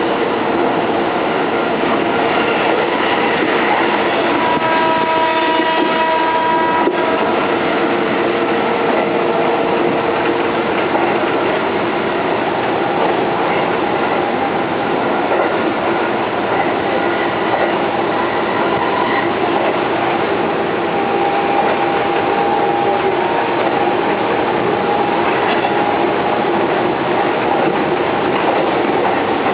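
Keihan 3000-series electric train running at speed, with steady wheel and rail noise and some clickety-clack. About four seconds in, a pitched tone with several notes stacked together sounds and holds for about three seconds.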